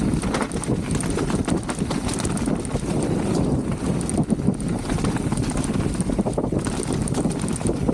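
Mountain bike descending a muddy dirt trail: knobby tyres rolling and skidding over dirt and roots, with the bike rattling and clacking over bumps and wind buffeting the microphone.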